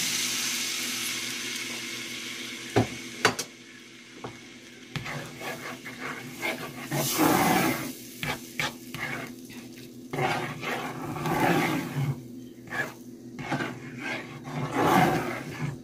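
Lemon sauce sizzling in a hot non-stick pan, the hiss dying away over the first few seconds as the liquid cools the pan, with two sharp knocks. Then a spatula stirs the sauce in short, irregular strokes, sloshing and scraping in the pan.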